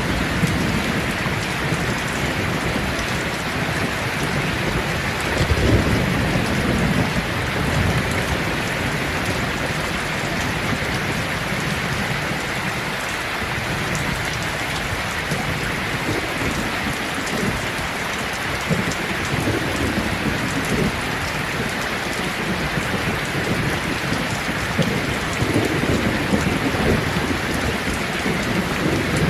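Steady, dense rain falling on leaves, with low rumbles of thunder swelling near the start, about six seconds in, and again near the end.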